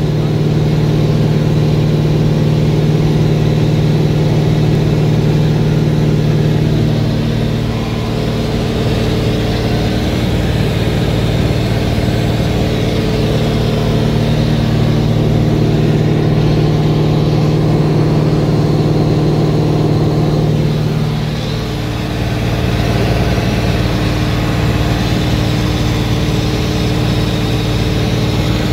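Cockpit drone of a Cessna 400's turbocharged six-cylinder piston engine and propeller in flight, heard from inside the cabin. The drone is steady, easing and changing pitch slightly about eight seconds in and again a little after twenty seconds.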